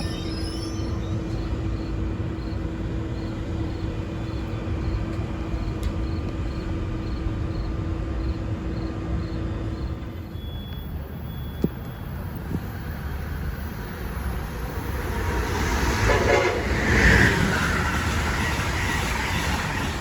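A passing train on the Northeast Corridor mainline. A steady hum with held tones runs for about the first half, then the rush of the train builds and is loudest a little before the end.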